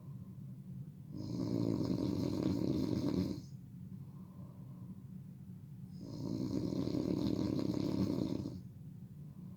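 A person snoring loudly: two long snores of about two seconds each, roughly five seconds apart, with quieter breathing between them.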